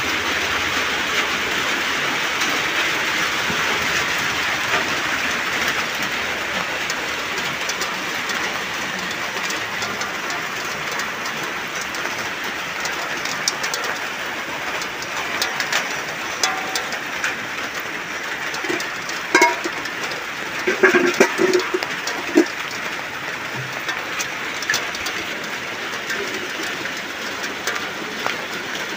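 Steady rain falling, an even hiss, with a few short knocks and clatters a little past the middle.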